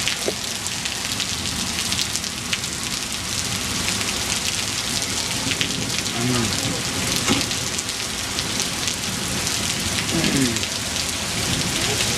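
Heavy rain pouring down, a steady hiss of drops falling and splashing with many small pattering hits.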